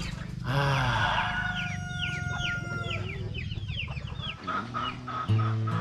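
A rooster crowing once in a long held call, over many small birds giving quick falling chirps. Background music with a pulsing beat comes in near the end.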